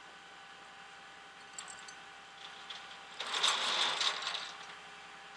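Metal clinking and rattling as the hook end of a tow truck's winch cable is handled at the edge of the flatbed deck. There are a few light clicks, then a louder clatter lasting about a second just past the middle.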